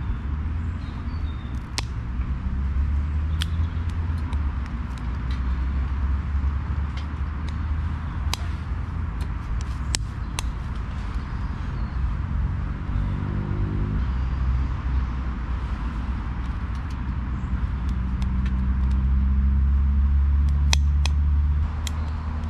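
Road traffic on a roundabout: a steady low rumble, with a vehicle's engine note rising as it pulls away about halfway through and a louder stretch near the end that drops off suddenly. Faint scattered clicks over it.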